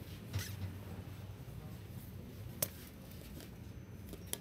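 Steady low hum of a subway car standing in a station, with a few brief clicks and rustles close to the microphone, the sharpest about two and a half seconds in.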